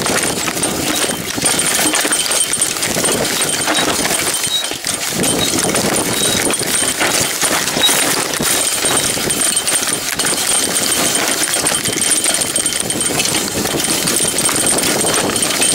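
Mountain bike riding fast down a rough dirt forest trail: tyres rumbling over the ground with a constant clatter of knocks and rattles from the bike over bumps.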